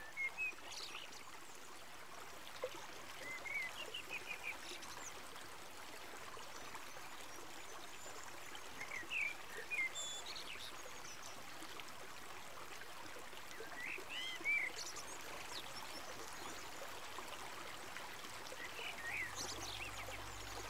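River water flowing steadily, with small birds giving short chirps every few seconds.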